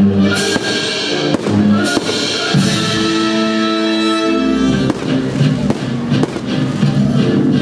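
Loud recorded music with held orchestral-style notes plays over a firework display, with several sharp firework bangs sounding through it.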